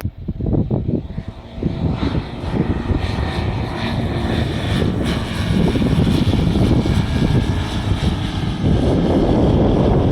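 Light single-engine propeller aircraft running at power. The engine sound builds over the first couple of seconds, then holds loud and steady.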